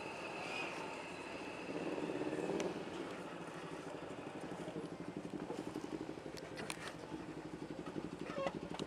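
Motorcycle engine running, louder for about a second around two seconds in, then idling with an even pulsing beat. A few light clicks near the end.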